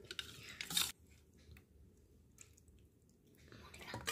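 Faint wet squishing and clicks of chicken curry being served into a steel bowl. The sound drops almost to silence after about a second and picks up again near the end.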